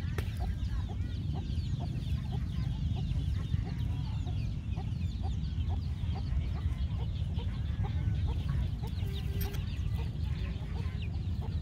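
Chickens clucking and other birds chirping over a steady low rumble.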